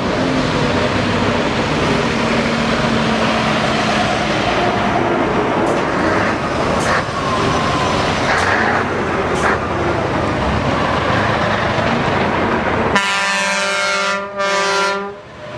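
Classic lorries driving past one after another, their diesel engines running and tyres on the road, with a few short knocks in the middle. Near the end a truck's air horn sounds for about two seconds, breaking off briefly once.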